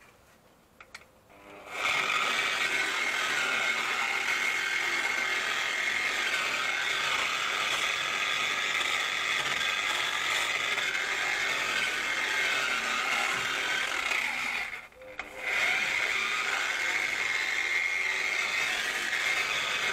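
Electric angle grinder with a wire wheel starting up and running with a steady high whine as it scrubs rust off a steel suspension arm. About three quarters of the way through it drops off briefly and then picks up again.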